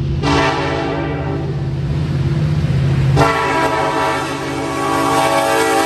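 Nathan K5LLA five-chime air horn on a Union Pacific SD70AH diesel locomotive, sounded in two long blasts, the second starting about three seconds in, as a grade-crossing warning. The locomotive's engine rumbles underneath.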